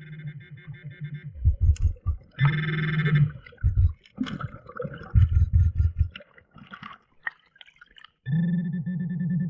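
Garrett metal-detecting pinpointer buzzing with a steady electronic tone in three stretches: at the start, cutting off after about a second; again briefly about two and a half seconds in; and again from about eight seconds in. Low muffled thumps of underwater movement come in between.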